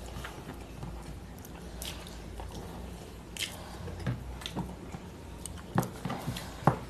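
Quiet eating sounds: chewing and fingers picking at a chicken bone on a plate, with scattered small clicks and a few sharper ones near the end.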